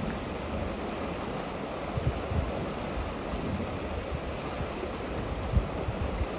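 Steady rushing of moving Potomac River water, with a few brief low thumps of wind buffeting the microphone.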